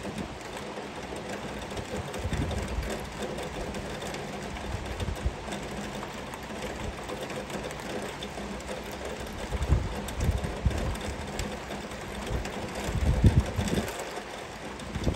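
Heavy rain falling in a steady hiss, with a few short low rumbles rising out of it, the loudest about two seconds before the end.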